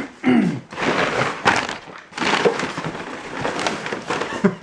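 Packing material rustling and crinkling in irregular bursts as the parts of a train horn are unwrapped and handled.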